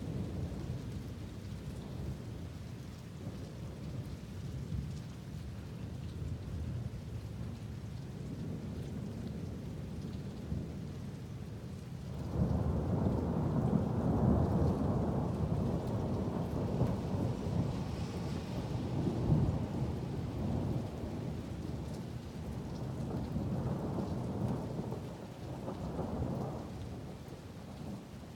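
Thunderstorm: steady rain falling, then about twelve seconds in a long roll of thunder breaks out and rumbles for some fifteen seconds, swelling and easing before it dies down near the end.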